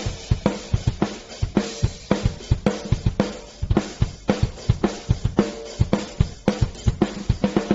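Background music with a fast, steady drum-kit beat.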